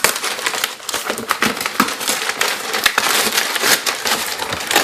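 Shipping packaging being pulled and torn at by hand, a dense, irregular crackling and crinkling.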